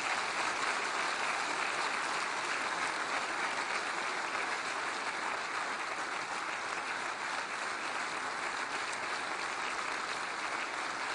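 Audience applauding, a steady round of clapping that holds at an even level.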